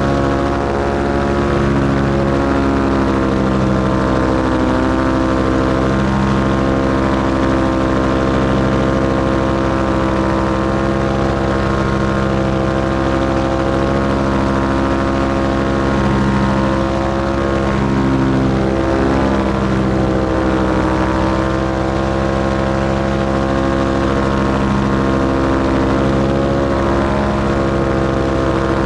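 Paramotor engine and propeller running steadily in flight, a constant, even pitch with only slight swells in power.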